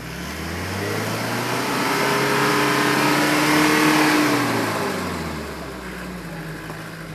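Mitsubishi Triton L200 pickup's engine revving up over about four seconds, then dropping back to idle about five seconds in.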